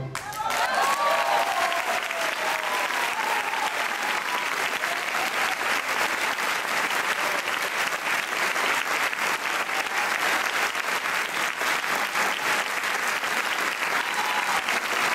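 Large audience applauding steadily, with voices cheering and calling out in the first few seconds and again near the end.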